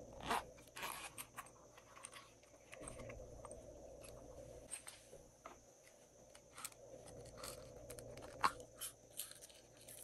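Light handling sounds of small plastic containers: a short zipping rustle near the start, then scattered soft clicks and taps as sequins are shaken out of a mesh-topped shaker onto slime.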